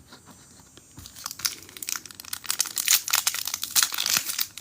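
Foil trading card pack wrapper crinkling, starting about a second in with rapid, dense crackling.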